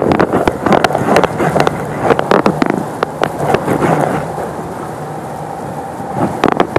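Fast, choppy river water rushing past the boat and wind on a handheld phone's microphone, with irregular crackles and knocks from the phone being moved about.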